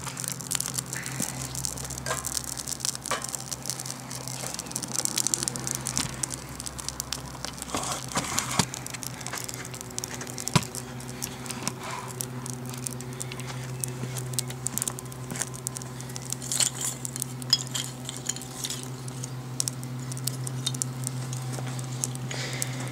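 Small wood-and-tinder fire burning in a folding steel Firebox stove, crackling with many small irregular snaps, over a steady low hum.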